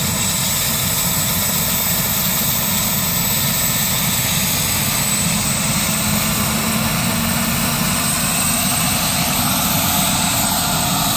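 Medical helicopter running loud and steady during takeoff: a fast low chop from the main rotor under a thin, steady high turbine whine.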